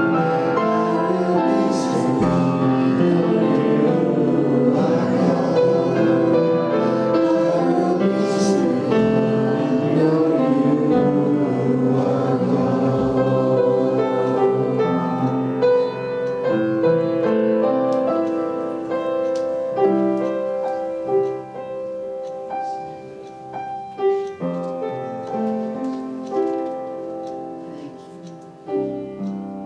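Church worship music: voices singing over piano and keyboard. Dense and full for about the first half, then thinning to quieter, separate keyboard notes that fade toward the end.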